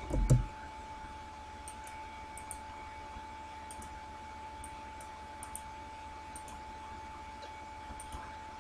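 Faint computer mouse clicks, several times and mostly in quick pairs, over a steady faint electrical hum. A short low thump comes just after the start.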